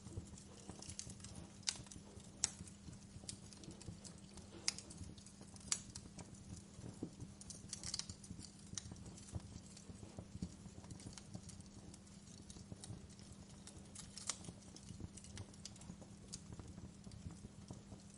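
Fire in a fireplace crackling: irregular sharp pops and snaps over a low steady rumble, with a few louder pops in the first six seconds.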